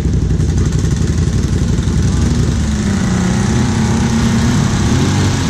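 ATV engine running with a steady low throb. From about two seconds in, a higher engine note rises and wavers as the machine revs through the hole.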